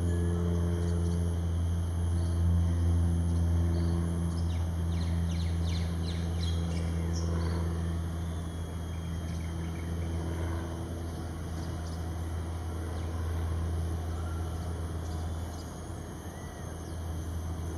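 A steady low drone-like hum with overtones under outdoor ambience. Scattered short high chirps come mostly in the first half.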